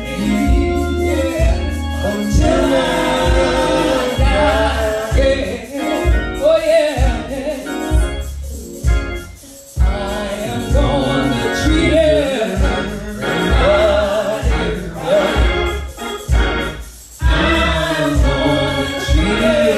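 Gospel singing: a male voice sings through the church PA microphone over band accompaniment with a steady low beat. The music drops away briefly twice, about halfway through and near the end.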